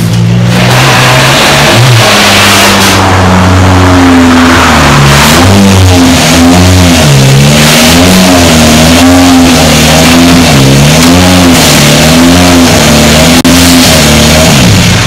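Toyota Yaris WRC rally car's 1.6-litre turbocharged four-cylinder engine running loudly as the car creeps into the service bay, its revs rising and falling about once a second.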